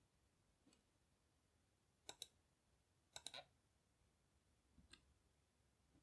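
Faint clicks of a computer mouse button while tracks are drawn in PCB design software: a quick pair about two seconds in, a rapid cluster of three just after three seconds, and a fainter pair near five seconds.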